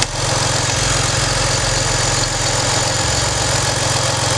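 BMW engine idling with a steady, even beat during a misfire check, its ignition coils being unplugged one at a time to find a suspected failing coil. The idle note shifts slightly about one and a half and three seconds in.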